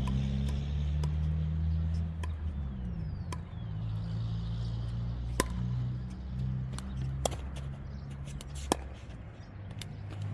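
Pickleball paddles striking the hollow plastic ball in a rally: sharp single pops a second or two apart, over a steady low droning hum.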